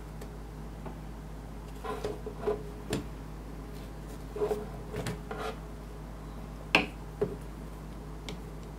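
Light clicks and taps of a keyboard PCB and plate being handled with a small metal hand tool, several in quick clusters, the loudest a single sharp click about three-quarters of the way through.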